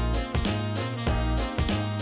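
Background music with a steady beat: an upbeat jazzy instrumental with drums and guitar.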